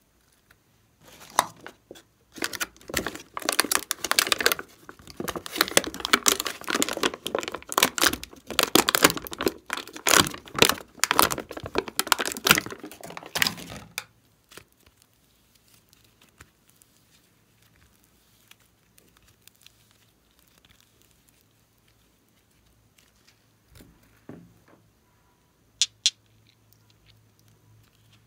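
Hands squishing and kneading glossy slime, a dense run of wet crackling and popping clicks through the first half. After that it is mostly quiet, with a few light clicks and two sharp clicks near the end.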